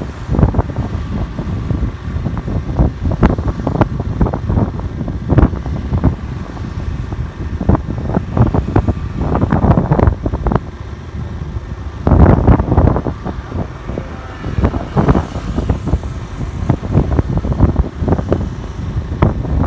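Motorcycle riding along a highway at speed: wind buffets the microphone in irregular low gusts over the running engine and road noise.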